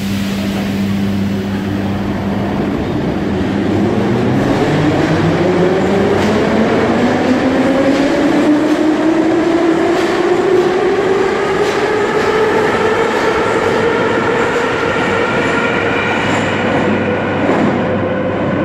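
Ezh3/Em-508T metro train pulling out of the station. A steady low hum gives way, about four seconds in, to the traction motors' whine rising steadily in pitch as the train accelerates away, over the rumble of the wheels.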